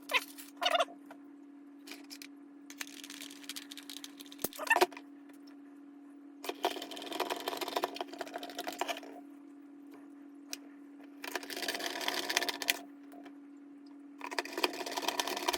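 Plastic toy casing being handled and fitted back together: scattered clicks and knocks, with three stretches of dense rattling and clicking about two seconds each, over a faint steady hum.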